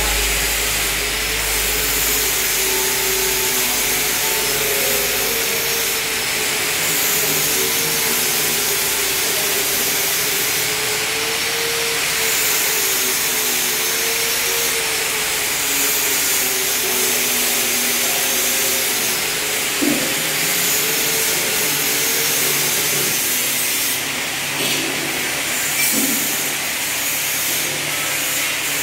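Steady mechanical noise of machinery running, a loud hiss with a wavering hum under it, and a couple of brief knocks about two-thirds of the way through and near the end.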